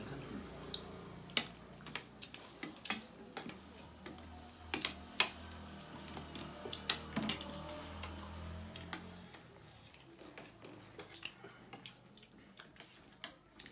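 Forks and spoons clinking and scraping on ceramic plates as people eat, in sharp irregular clicks, over a low hum that fades out about nine seconds in.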